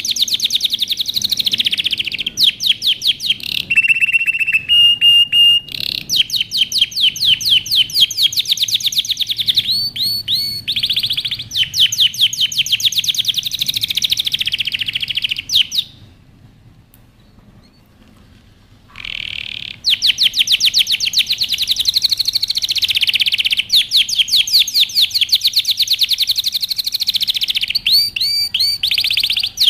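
Male domestic canary singing its courtship song in fast rolling trills, with a short held note about four seconds in. The song stops for about three seconds midway, then starts again with the same fast trills.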